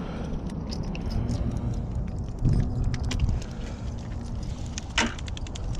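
Wind buffeting the microphone in a steady low rumble, with scattered light clicks and taps and one sharper click about five seconds in.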